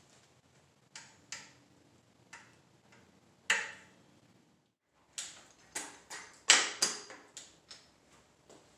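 Irregular sharp clicks and taps of tools and small bicycle parts being handled, with one loud click about three and a half seconds in and a quicker run of clicks in the second half.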